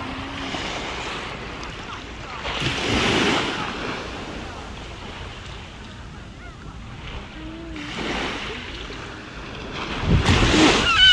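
Sea waves washing onto a shore, the surf swelling three times: about two and a half seconds in, about eight seconds in, and loudest near the end. Wind buffets the microphone with a low rumble.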